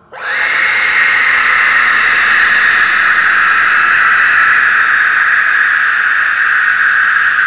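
Horror scream sound effect: a loud scream that bursts in suddenly, sweeps up in pitch in its first moment, then is held steady as one long scream.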